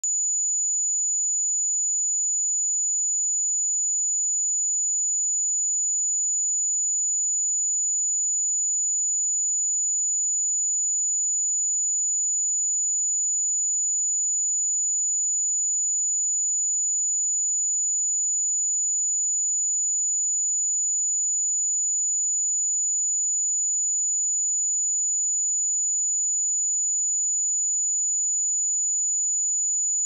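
Pure 6932 Hz sine-wave test tone, a single steady high-pitched whistle at constant loudness.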